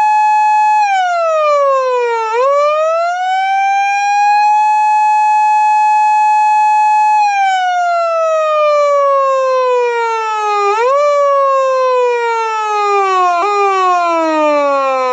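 PATLITE SAP-500BK police-car electronic siren sounding through its speaker in manual mode: the tone climbs and holds a high pitch for several seconds, then sinks slowly when let go. Twice near the end it jumps briefly back up before sliding down again.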